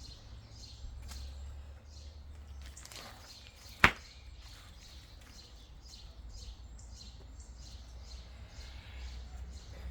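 Small birds chirping over and over, short falling notes, over a low steady hum. One sharp click or knock comes a little under four seconds in.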